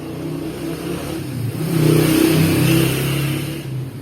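A motor vehicle's engine and tyres, passing close by: an engine hum with road hiss that swells to its loudest in the middle, then fades.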